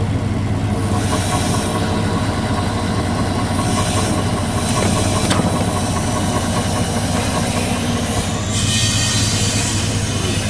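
An engine idling steadily, with a constant low hum. A brighter hiss joins in about two seconds before the end.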